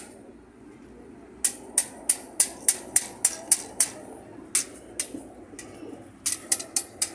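A hammer striking metal: quick runs of sharp, ringing blows at about four a second, after a short pause at the start, with only a few scattered blows in the middle.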